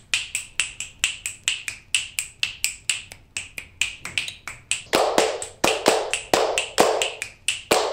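Rhythmic finger snapping, about four snaps a second. About five seconds in, hand clapping joins on the same beat.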